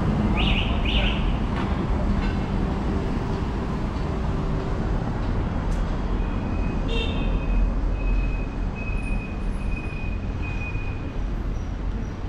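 City street traffic noise: a steady low rumble of passing cars, with two short high-pitched sounds near the start and a thin high tone that comes and goes through the second half.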